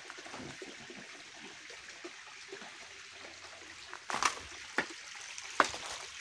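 A thin stream of water trickling down a rock face, with a few sharp crunches of footsteps on dry twigs and stones about four seconds in and again near the end.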